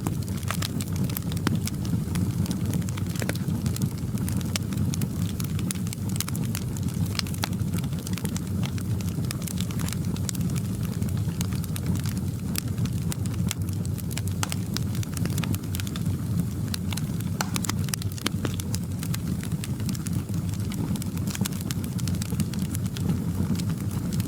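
Wood fire in a fireplace crackling, with frequent irregular pops and snaps over a steady low rumble of the flames.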